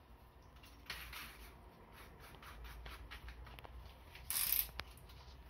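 Makita cordless drill being handled while a bit is changed in its chuck, ready to drill a pilot hole: light clicks and ticks, then a short rasping burst about four seconds in and a sharp click just after.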